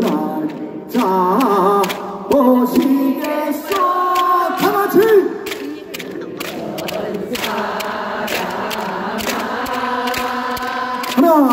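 A male singer sings a cappella through a microphone while the audience claps along in time; about halfway through he holds the microphone out and the crowd sings the line together.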